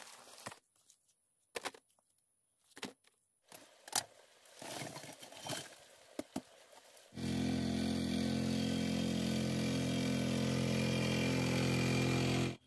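Scattered knocks and rustling from digging soil and handling bamboo shoots. About seven seconds in, a small engine comes in abruptly and runs steadily and loudly at an even pitch, then cuts off suddenly near the end.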